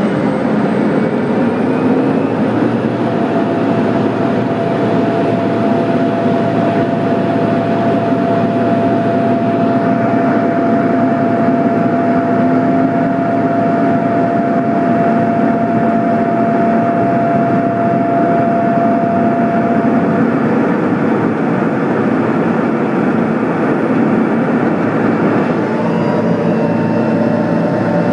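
Pilatus PC-12's turboprop engine and propeller at takeoff power, heard from inside the cockpit: a loud, steady drone through the takeoff roll and climb-out. A steady whine runs through the middle and stops about two-thirds of the way through, and the pitch changes near the end.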